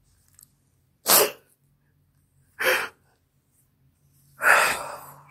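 Three loud, sharp bursts of breath through a person's nose and mouth, about a second and a half apart, the third longer and trailing off.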